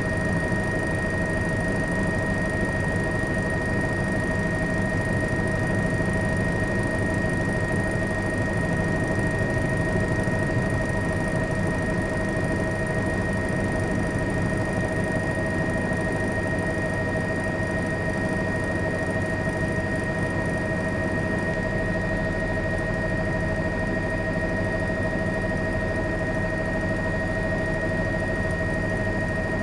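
Steady engine drone with a constant high-pitched whine over it, unchanging throughout.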